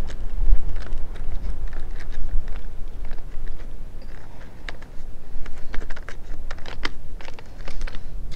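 Irregular small clicks and taps of metal screws, washers and nuts being fitted by hand to a solar panel's roof-mount bracket, over a low wind rumble on the microphone.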